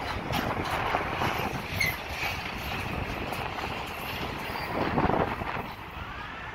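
Freight train wagons, covered hoppers and a boxcar, rolling past with a steady rumble and steel wheels clicking over rail joints in the first couple of seconds. A louder rush comes about five seconds in, as the last wagon goes by.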